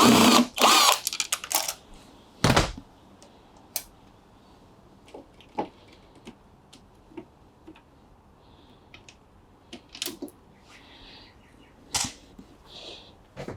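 Cordless drill-driver running in a few short bursts, undoing screws from a washing machine's front panel, then a single thump about two and a half seconds in and scattered light clicks and knocks of parts being handled.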